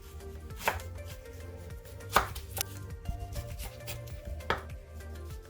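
Knife slicing a peeled plantain into thin rounds on a board: several sharp, irregularly spaced cuts.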